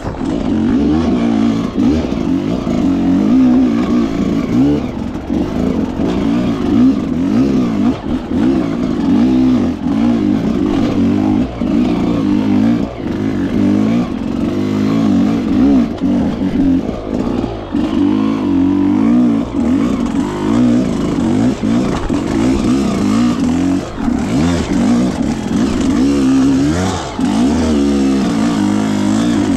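Dirt bike engine revving up and down constantly under hard riding, with brief throttle cuts every few seconds.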